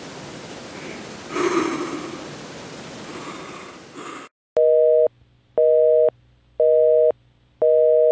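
Telephone busy signal: two tones sounded together, beeping on and off about once a second, four beeps, starting after about four seconds of steady hiss.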